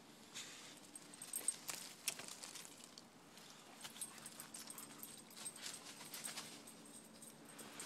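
Faint, irregular rustling and crackling, like movement through leaf litter and twigs on a forest floor, in uneven clusters with the loudest snaps about one and a half to two seconds in.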